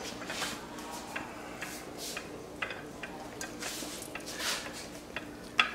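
Metal baking pans being handled: scattered light clicks, knocks and rubbing scrapes, with a sharper knock near the end, over a faint steady hum.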